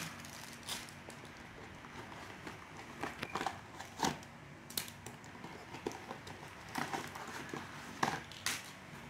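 A toy box and its plastic packaging being opened and handled: scattered crinkles and light clicks, about ten over several seconds.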